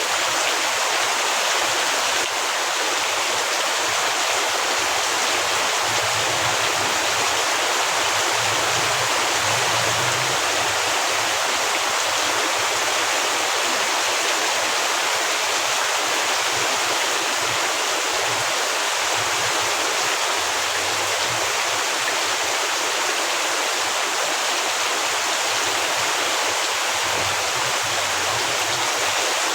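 Heavy rain pouring steadily, a dense, even hiss of falling water.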